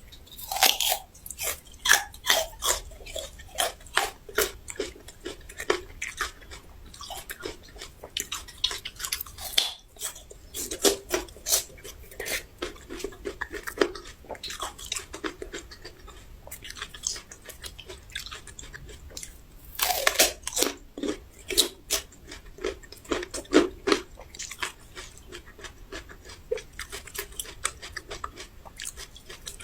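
Close-up crunching and chewing of raw ginger root: many sharp crisp crunches, with the busiest bites near the start, around nine seconds in and again around twenty seconds in.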